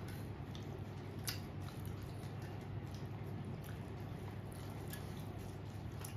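Fingers mixing and mashing white rice with eggplant-and-potato curry on a plate: soft wet squishing with scattered faint clicks and one sharper click a little over a second in, over a steady low hum.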